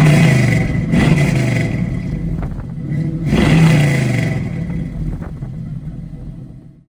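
LS1 V8 of a 1969 Camaro revving in two surges, its pitch falling away after each, then fading out near the end.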